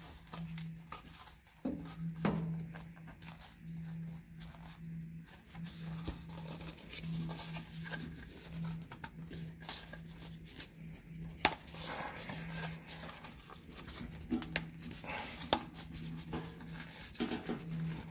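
Small plastic clicks and scrapes as hands work the clips out of a Tesla Model 3/Y steering column shroud, with one sharp click about eleven seconds in, over a steady low hum.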